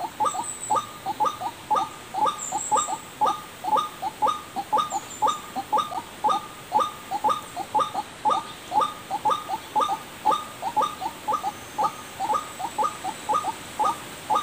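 White-breasted waterhen's 'ruak-ruak' call repeated over and over, about three short falling notes a second, used as a lure call to draw waterhens in.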